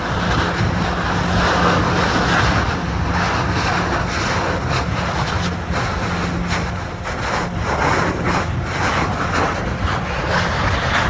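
Steady rushing roar of an erupting Kilauea lava fissure, with irregular pops and wind buffeting the microphone.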